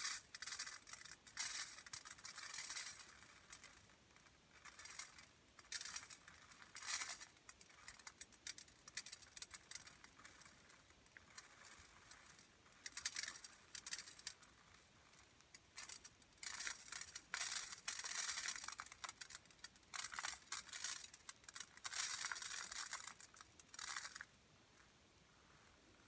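Rice grains pattering in irregular bursts as a Foley imitation of rain, each burst lasting from a fraction of a second to about two seconds with short gaps between, stopping near the end.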